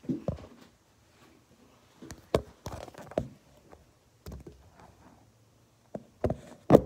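Handling noise from the phone's own microphone: a scattered run of knocks, bumps and rubs as the phone is moved about and propped up, with the loudest knock near the end.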